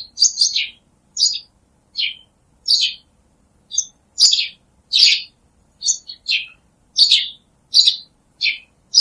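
Small bird chirping: a string of short, high chirps, each sliding down in pitch, a little more than one a second.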